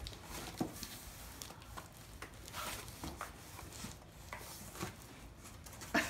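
Hands handling cardboard boxes while unpacking an inner box from a shipping box: faint, scattered rustles, scrapes and light taps of cardboard.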